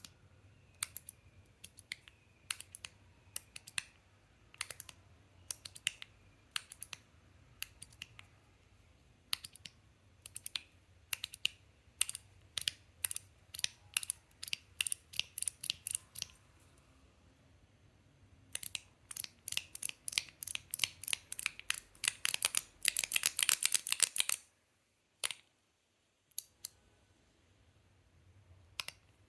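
Metal Toys DZ Top B Rain titanium fidget toy being worked in the hand: sharp metallic clicks at an uneven pace, coming faster later and running into a quick rattle of clicks for a couple of seconds, then a few last clicks.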